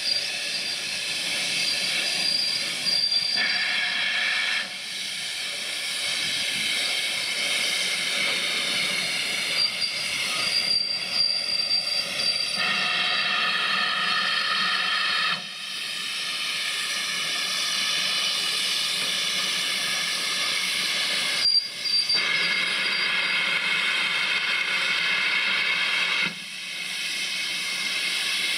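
Steam hissing from an ex-GWR tender steam locomotive moving slowly, the hiss stepping louder and quieter several times. Brief thin high-pitched squeals come and go a few times.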